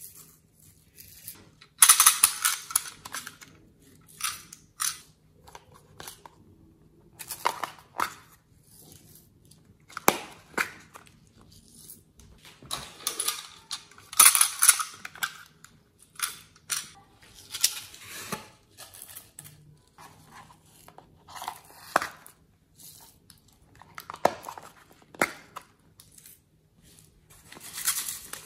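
Small plastic containers of glitter and makeup being handled and opened, with glitter poured out: irregular crackles, clicks and rustles every few seconds, loudest about two seconds in and around halfway.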